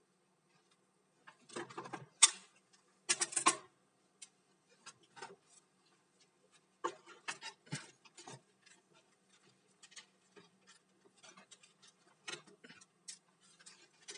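Irregular clicks, taps and rustles of hands working with multimeter probes on a laptop motherboard and moving the multimeter on the workbench. The loudest come in two clusters of clatter in the first few seconds, with scattered light ticks after that, over a faint low hum.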